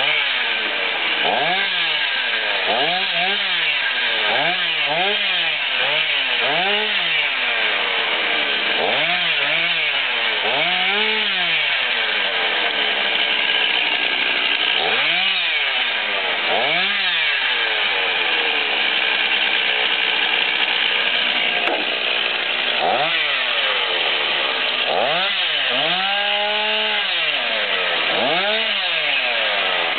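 Two-stroke chainsaw cutting through brush, its engine revving up and falling back again and again every second or two.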